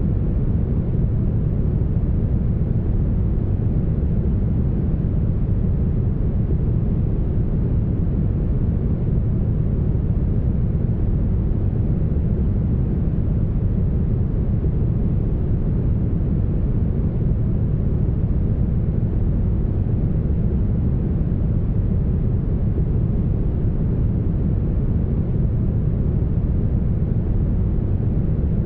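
Brown noise: a smooth, steady low hiss with most of its weight in the bass, unchanging throughout.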